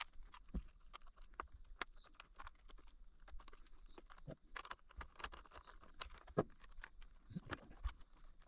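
Fairly quiet, irregular light clicks, taps and knocks, a few a second, of small hard objects being handled.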